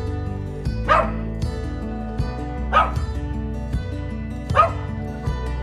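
A dog barking three times, about two seconds apart, over background music.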